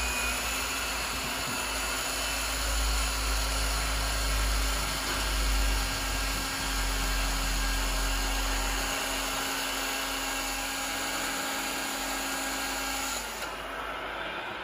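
Small electric motor of a radio-controlled construction model running with a steady whine, stopping about 13 seconds in.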